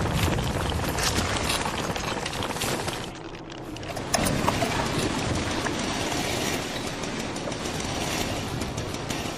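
Dense mechanical rattling and grinding sound effects, full of rapid clicks. They drop away about three seconds in and cut sharply back in about a second later.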